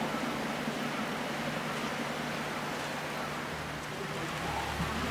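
Steady rain, an even hiss, with a faint steady low hum beneath it.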